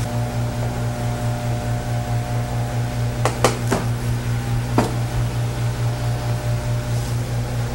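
A steady low hum, with three quick sharp taps a little over three seconds in and one more about a second later: a chef's knife striking the work surface as it cuts puff pastry.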